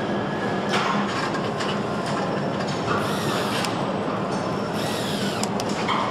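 Steady machine din of a motorcycle assembly hall with scattered clicks and knocks. A Panasonic cordless screwdriver whirs briefly about three seconds in and again around five seconds, driving screws into a handlebar switch housing.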